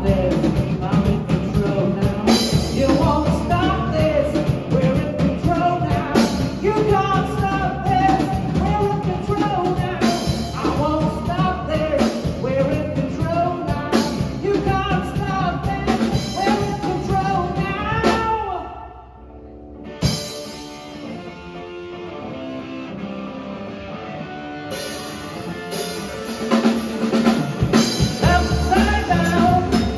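Live rock band of drum kit, bass and electric guitar playing together. About eighteen seconds in, the band stops short. After a single hit, a thinner, quieter passage of held notes follows, and the full band comes back in near the end.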